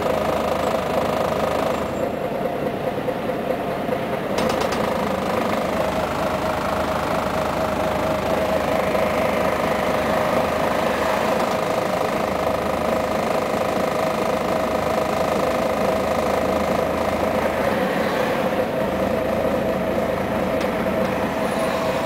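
Interior of a Scania CN113CLL city bus under way: the diesel engine runs with a steady whine through the moving cabin, mixed with road and tyre noise.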